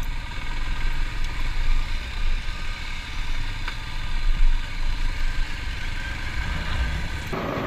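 Motorcycle engine running at low speed over a rough gravel road, a steady low rumble heard from the rider's own bike.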